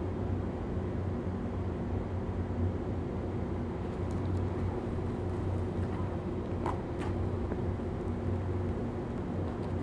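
Steady low mechanical hum, like an engine or machinery running, with a couple of faint clicks about seven seconds in.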